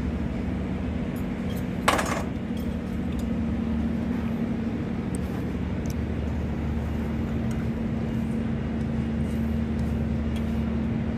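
Steady low machine hum, with a sharp clink about two seconds in and faint light ticks of hand tools on metal at the cable terminations of an electrical panel.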